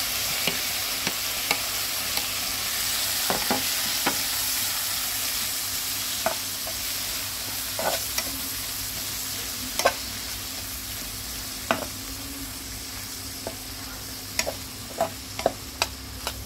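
Raw shrimp and minced garlic sizzling in hot oil in a frying pan, loudest at the start as the shrimp go in and slowly dying down. A spatula knocks and scrapes against the pan now and then, more often near the end.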